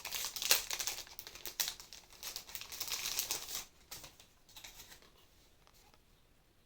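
Plastic packaging crinkling and crackling as it is handled, in quick irregular bursts with sharp clicks, dying away after about four seconds.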